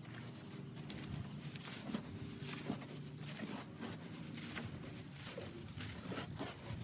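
Pine shavings being scraped and pushed out of a chicken coop, in repeated rough swishing strokes.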